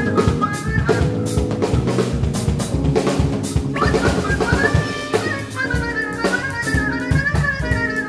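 Live jazz-fusion band playing: a busy drum kit with snare and kick under electric bass and keyboards, with a trumpet lead. The high melody line drops out about a second in and comes back about four seconds in while the drums keep going.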